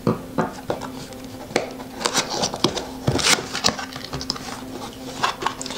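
Cardboard box being opened by hand: its flaps pulled open, the corrugated cardboard crackling and scraping in irregular sharp clicks, over a faint steady hum.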